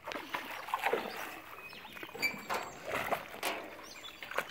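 A hooked bass thrashing and splashing at the surface of the water on a tight line, in irregular bursts of splashing.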